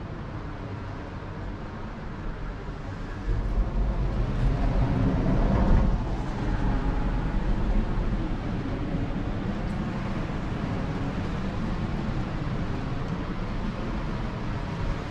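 Steady low outdoor rumble of road traffic. It swells as a vehicle passes over the bridge, from about three to six seconds in, then settles back to a steady drone.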